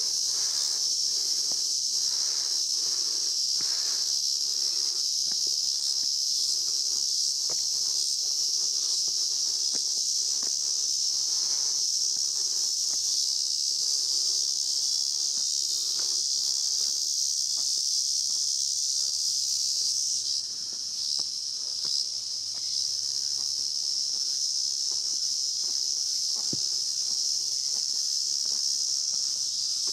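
Cicadas buzzing in a steady, high-pitched chorus that dips briefly about two-thirds of the way through, with faint footsteps on stone steps beneath.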